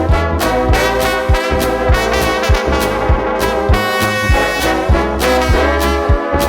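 Trombone-led gospel brass band playing a loud, dense passage of several horns together, over drum hits that keep a steady beat.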